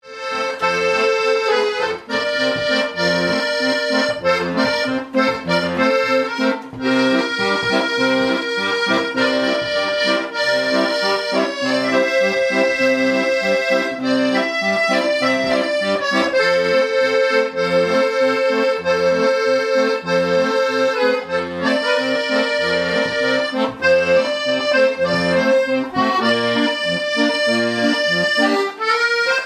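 Silvertone piano accordion playing a tune: held chords and melody over a regular, pulsing bass.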